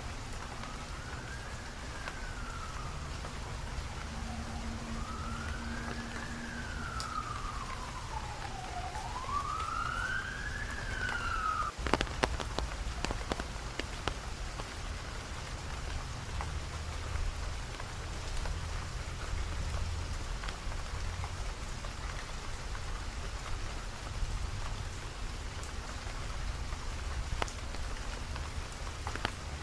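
Steady rain falling, with an emergency-vehicle siren wailing slowly up and down in pitch for about the first twelve seconds before it cuts off suddenly amid a few sharp taps.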